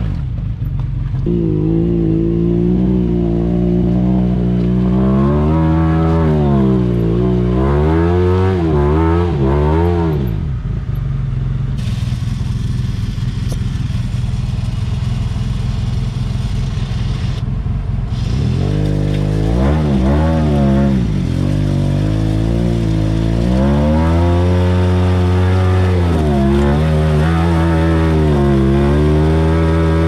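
Off-road side-by-side engine revving up and down over and over, with a steadier stretch near the middle.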